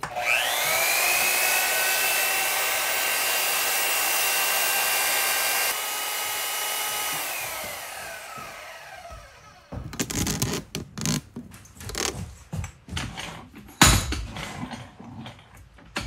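A benchtop power tool with a vertical spindle spins up with a quick rising whine, then runs steadily with a hiss while a part is held against the spindle. After about six seconds it is switched off and winds down with a falling whine. Then come scattered knocks and clatter of metal parts being handled on the bench, with one loud knock near the end.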